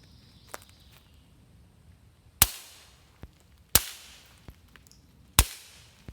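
Suppressed Ruger Mark IV 22/45 .22 LR pistol firing three shots, about a second and a half apart, each a sharp crack with a short fading tail. A few faint ticks fall between the shots.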